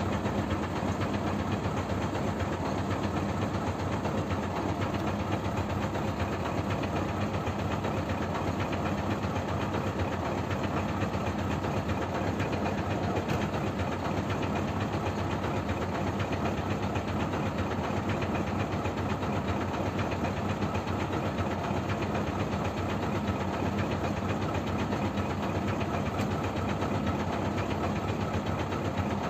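Truck engine idling steadily, an even running sound that does not change.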